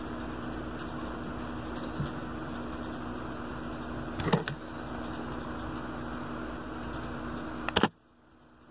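Light clicks of a small metal tool against an IC's pins as they are pried up: a single tick, a short cluster about halfway through, and a sharp click near the end. A steady electrical hum sits underneath and cuts off abruptly right after the last click.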